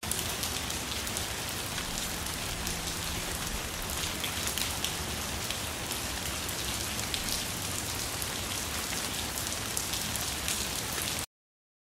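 Steady outdoor rain falling, with a dense patter of individual drops hitting surfaces. It cuts off suddenly near the end.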